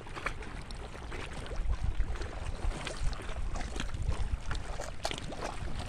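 Wind buffeting the phone's microphone as a fluctuating low rumble, over the wash of small waves on a rocky shore, with scattered short clicks and splashes.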